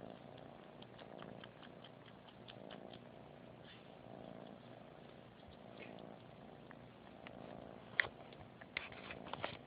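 Kitten purring softly while suckling on a stuffed toy, the purr swelling and fading about once a second, with small sucking clicks. A few sharper clicks come near the end.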